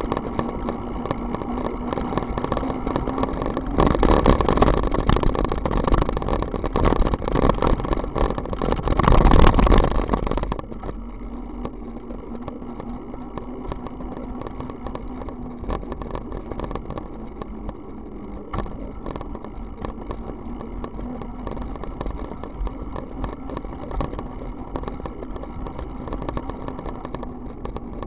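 Wind rushing over a bicycle-mounted camera's microphone, with tyre and road noise. It is louder for the first ten seconds or so, then drops suddenly to a quieter steady rush.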